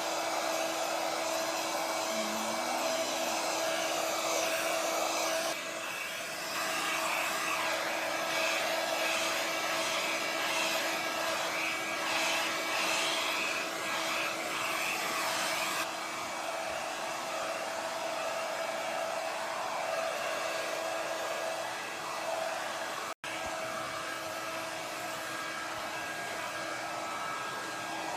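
Hair dryer running steadily, a motor whine under the rush of air. The rush grows and fades a couple of times and cuts out for an instant about two-thirds of the way through.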